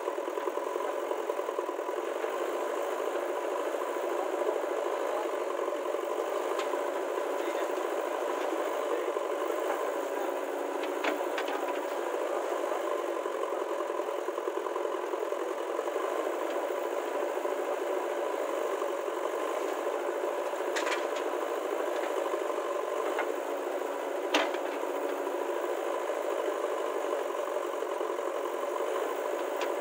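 Heavy diesel machinery engine running steadily with a rattle, and a few sharp clanks, the loudest about three-quarters of the way through.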